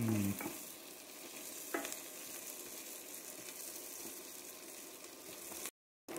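Chopped onion, carrots, celery and parsnip sizzling in oil in a pot as a wooden spoon stirs them, softening the vegetables, with a single knock of the spoon about two seconds in. A brief low hum sits right at the start, and the sound drops out for a moment near the end.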